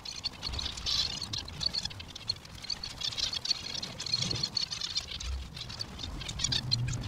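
A flock of zebra finches chattering: many short, high chirps in quick, dense succession, with no break.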